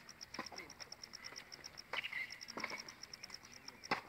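Insect chirping in a fast, even train of short high-pitched pulses, about seven a second, broken off briefly a couple of times. A few sharp knocks sound over it, the loudest near the end.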